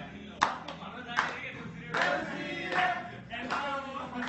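A group of voices singing with rhythmic hand clapping, about one clap every three-quarters of a second.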